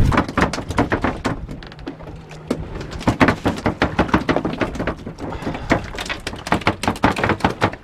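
A rapid, irregular clatter of knocks and taps as gear is handled at the gunwale of a fishing boat while a fish is brought alongside and gaffed.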